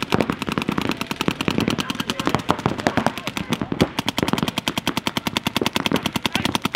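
Paintball markers firing rapidly, a continuous stream of sharp pops at more than ten shots a second.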